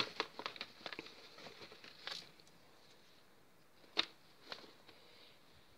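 Small clicks and rustles of resin charms and beads being handled on a tabletop, busiest in the first two seconds, with a sharper click about four seconds in.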